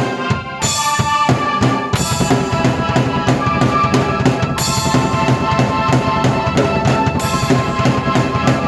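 Drum kit and keyboard played together by one performer in an instrumental piece: bass drum and snare beats under sustained keyboard chords. About two seconds in the drumming fills out into a steady, busier groove.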